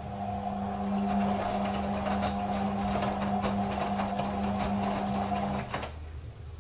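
Hotpoint WM31 front-loading washing machine's drum motor running a wash tumble, a steady hum, with wet laundry and water sloshing and thudding in the drum; the motor stops about six seconds in.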